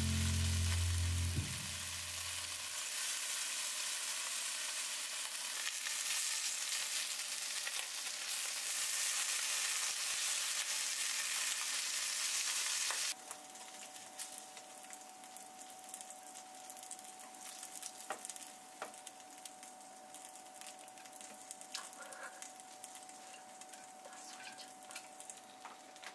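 Bacon slices sizzling in a frying pan as wooden chopsticks turn them, a dense steady hiss. About halfway through the sizzle cuts off abruptly, leaving a quieter stretch: a faint steady hum and scattered light clicks as the bacon is laid onto a ceramic plate.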